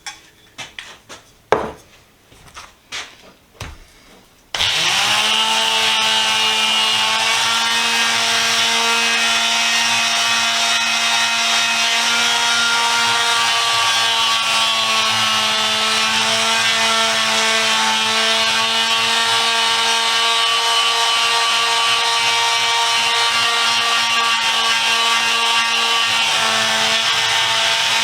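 A few light clicks and knocks, then about four and a half seconds in a power-tool wire wheel starts up and runs at a steady pitch, with the rough scratching of the wheel working over a steel adjustable wrench.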